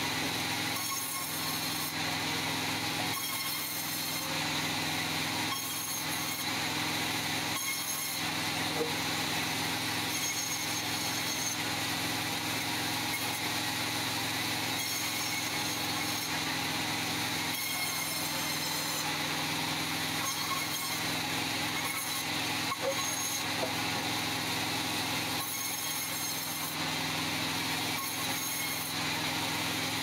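Sawmill saw running with a steady motor drone under a dense hiss, as short logs are pushed through it; the cutting noise shifts now and then as each piece goes through.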